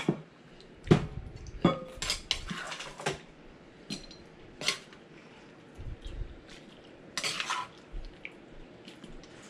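Dishes and utensils clinking and knocking, a dozen or so irregular strikes with a few duller thuds among them.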